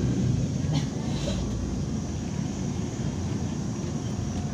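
Cabin noise of a MAZ 103 city bus under way: a steady low diesel rumble with road noise, easing off slightly about a second in. A brief click a little before that.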